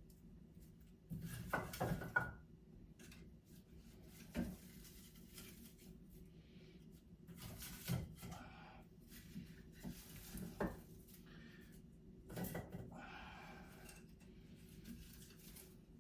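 Wood-burning fireplace being tended: scattered knocks and clinks of wood and metal, a short cluster about a second in, then single sharp ones every few seconds.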